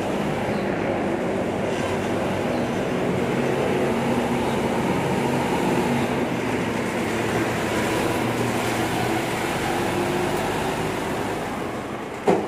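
Volvo FE 300 refuse truck's six-cylinder diesel engine running as the truck drives slowly past, growing louder and then easing off. A single sharp knock near the end.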